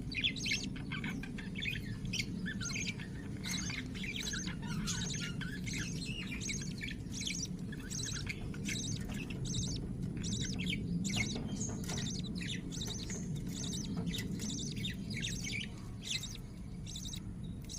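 Lovebirds chirping rapidly and continuously, several short high chirps a second, the calls of a chick being fed by its mother, over a steady low hum.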